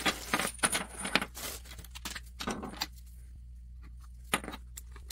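Clinks and rustles of small electrical parts being handled, ceramic lamp sockets and their wires. The handling is busiest in the first three seconds, then quiets to a single click near the end, over a steady low hum.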